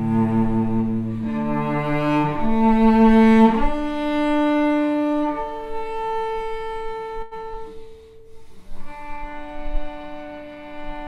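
A bowed string instrument playing a slow melody of long held notes that change every second or two, with one note sliding up about a third of the way in; it plays more softly in the second half.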